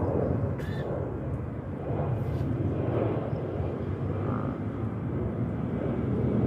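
An alpaca coughs once, short and sharp, about half a second in, and more faintly again about two seconds in. A steady low rumble runs underneath.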